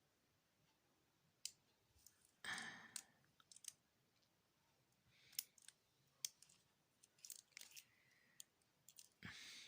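Faint scattered clicks and a couple of brief rustles, from an opened laptop battery pack and its cells being handled.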